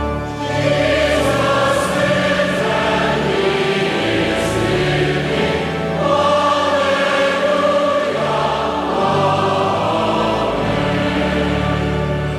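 Choir singing a hymn over sustained deep bass notes that change every second or two.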